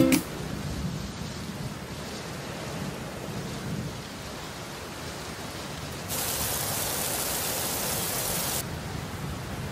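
Steady rain with low thunder underneath. About six seconds in, a louder downpour hiss starts abruptly, lasts about two and a half seconds, and cuts off suddenly.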